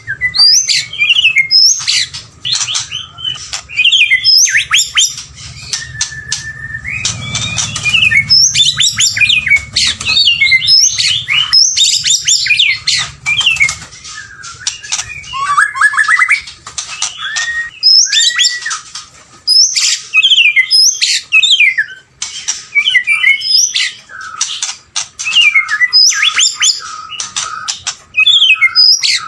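White-rumped shama singing: a loud, varied song of clear whistles, sweeping phrases and rapid chattering notes, delivered in bursts with short pauses between them.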